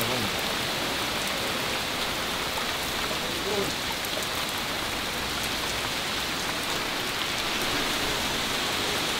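Steady downpour of rain, an even rushing hiss with faint ticks of drops, during a thunderstorm.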